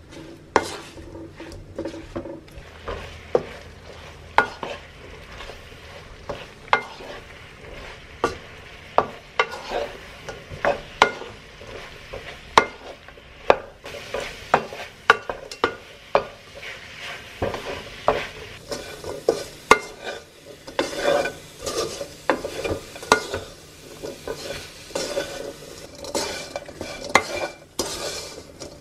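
Wooden spatula stirring and scraping strips of pomelo peel around a nonstick wok, with irregular knocks of the spatula against the pan over a light sizzle. The stirring gets busier in the second half, as the sugar syrup cooks off and the peel dries to a sugar coating.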